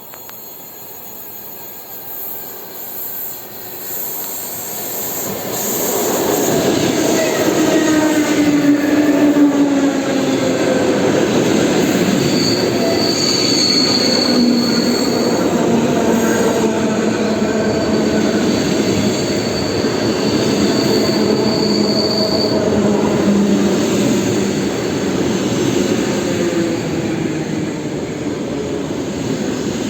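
EP2D electric multiple unit pulling into a station and braking: the rumble grows over the first six seconds, then stays loud, with a falling whine. A high brake or wheel squeal comes twice.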